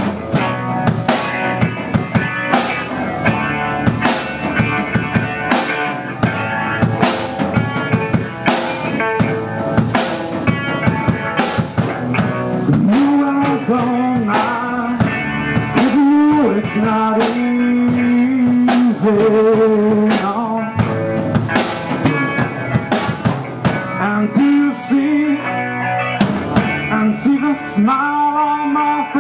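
Live rock band playing: a drum kit keeps a steady beat under electric guitar played through a Marshall amp. A male singer comes in about halfway through.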